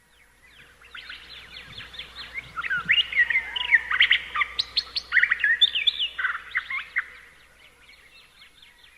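Birds chirping, many quick calls overlapping, swelling in after about a second and fading out near the end.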